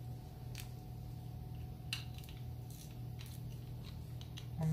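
Thumb wiping and rubbing a plastic coin capsule, giving a few faint short scrapes and squeaks over a steady low hum.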